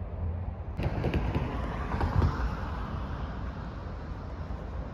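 Low wind rumble on the microphone, with a road vehicle passing: its noise comes in suddenly about a second in, peaks soon after and fades away over the next few seconds.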